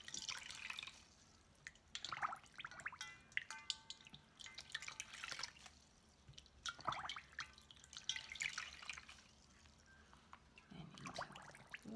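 Wet felt pouch being squeezed and dunked in a stainless steel bowl of water, water splashing and dripping back into the bowl in several bursts a second or two apart. This is the hot-and-cold water shock that makes the wool contract and felt firmer.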